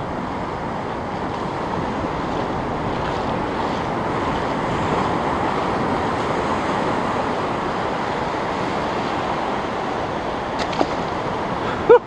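Ocean surf breaking and washing up a sandy beach: a steady rush of waves and foam that swells a little in the middle.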